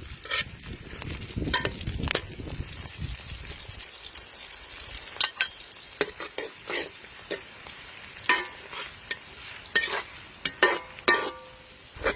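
Pork liver sizzling as it is stir-fried in a pan, over a steady hiss, with many sharp clacks of the cooking utensil against the pan.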